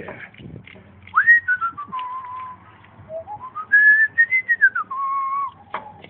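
A man whistling a short tune: two phrases of sliding notes, each rising then falling to a held note. There are a few faint clicks from handling.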